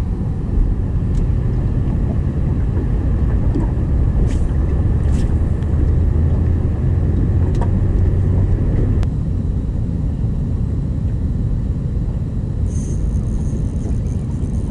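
A boat's motor running steadily under way, a low, even drone.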